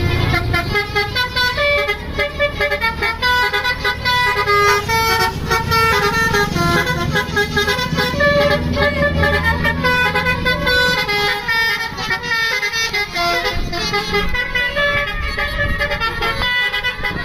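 Bus 'basuri' telolet horn, a multi-tone musical air horn, playing a melody as a run of short stepped notes, over the low running of the bus engine, which drops away after about ten seconds.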